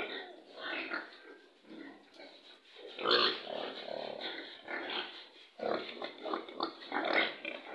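Young pigs grunting, a run of short irregular calls, loudest about three seconds in.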